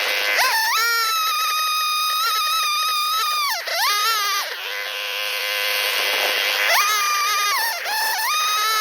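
Large two-stroke chainsaw running at high revs, milling through white oak; the revs drop sharply and pick back up a few times.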